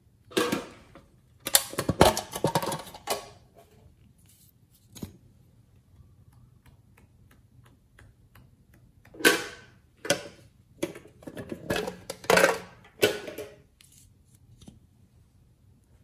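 Glossy slime being pressed and poked with a small tool, giving sticky crackling clicks in bursts: a cluster in the first few seconds, a single click in between, and another cluster in the latter half.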